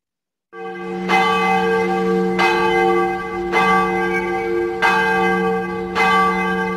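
A large bell tolling: five strokes, about one every second and a quarter, each ringing on into the next. The ringing fades in about half a second in.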